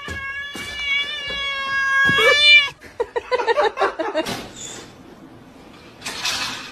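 A cat yowling in one long, steady drawn-out call for about two and a half seconds, then a few shorter broken cries. Two short hissy bursts of noise follow near the end.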